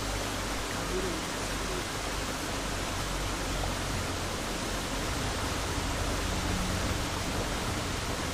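Steady rushing of flowing stream water, an even hiss over a low rumble.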